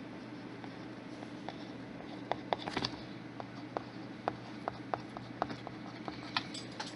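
A series of light, sharp clicks at irregular spacing, about a dozen, starting about two seconds in, over a steady low hum.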